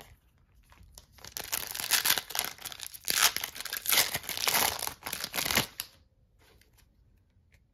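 A 2023 Topps Star Wars Finest trading-card pack wrapper being torn open and crinkled by hand, a dense crackling that starts about a second in and stops shortly before the end.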